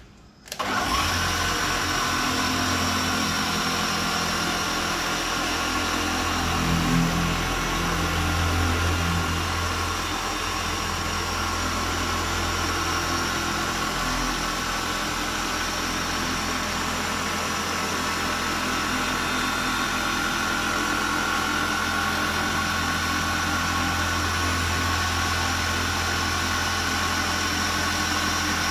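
Dual-action orbital polisher with a green foam pad running on car paint, machine-polishing with cutting compound. It starts up about half a second in and then runs steadily as a hum with a thin high whine. It grows a little louder for a couple of seconds about a quarter of the way through.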